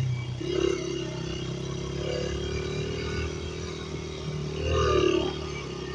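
Dirt bike engine running under way at a steady note, with a brief rise in revs and loudness about five seconds in.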